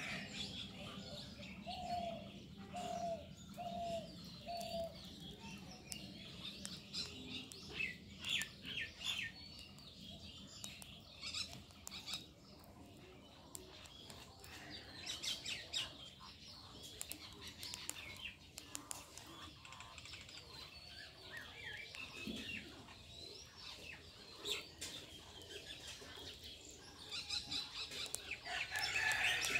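Birds chirping and calling, with a run of four short, lower calls about two to five seconds in, over scattered small clicks.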